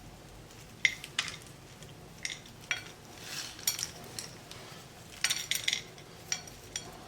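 A spoon clinking against a dish a dozen or so times, sharp ringing taps in small clusters, as roasted peanuts are added to the chat.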